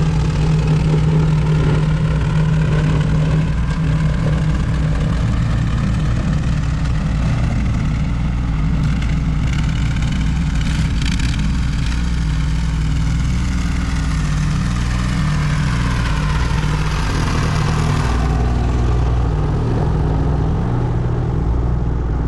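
A petrol engine runs steadily for the whole stretch, its pitch shifting slightly now and then.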